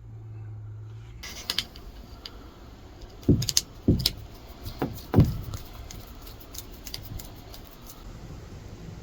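A handful of sharp knocks and heavier thumps, about five of them in the middle seconds, with light rattling and clicking between them; a low hum cuts out about a second in.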